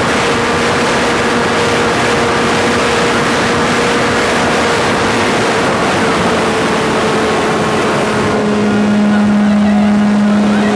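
Engine of a radio-controlled PC-9 model plane running at high speed, heard from on board with heavy wind rush over the microphone. Its pitch drops slightly near the end as the wind noise eases.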